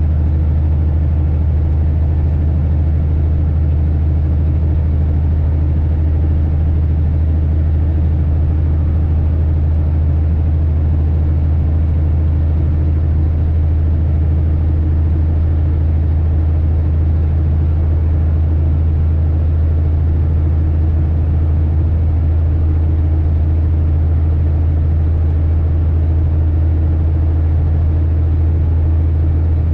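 Heavy truck's diesel engine running steadily, heard from inside the cab as a constant low drone with no gear changes.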